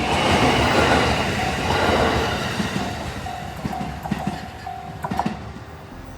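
JR Sotobo Line train passing over a level crossing: loud rumble of the cars going by, fading after about two and a half seconds, then a quick run of wheel clacks over the rail joints near the end.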